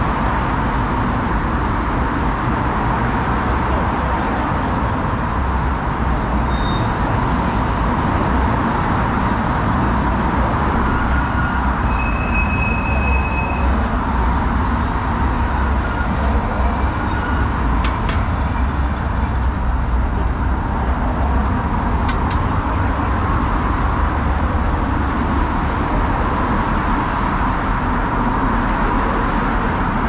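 Steady loud rumble of a moving train, with a constant faint whine over it. A short high beep comes about twelve seconds in.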